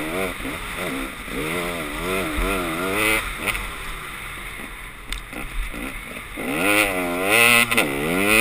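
Dirt bike engine on the move, its pitch rising and falling about once a second as the throttle is worked. It eases off for a few seconds in the middle, then revs hard again near the end.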